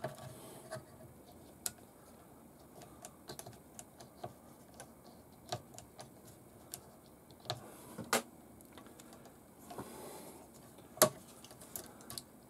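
Scattered small clicks and taps of plastic and metal RC kit parts being handled, as small clamps are worked onto a bent suspension bracket to squeeze it. Two louder knocks, one about eight seconds in and one near the end.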